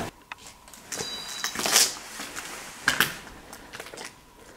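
Heavily amplified quiet recording: over a raised hiss, a short breathy hiss swells and fades about two seconds in, and a sharp click follows about a second later. The breath-like sound was heard on site as a 'Hauchen' or a 'Pfft'; the investigators wondered whether it was someone's spray can.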